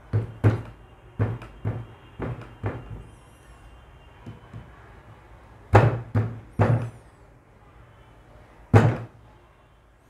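Light screwdriver taps on the metal contact strip of an instant water heater's low-pressure switch. They bend the strip down to close the gap between the contacts, so the heater switches on at low water pressure. There are sharp knocks about two a second for the first few seconds, then after a pause three louder knocks about six seconds in and one more near nine seconds.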